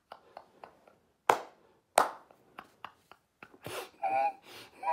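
A man laughing hard, at first mostly breathless, with small clicks and two sharp smacks in quick succession, then wheezing, high-pitched laughs near the end.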